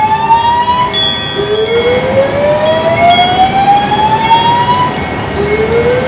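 Building fire alarm sounding a slow-whoop signal for its monthly system test: a tone that rises steadily for about three and a half seconds, stops briefly and starts again from the bottom, repeating.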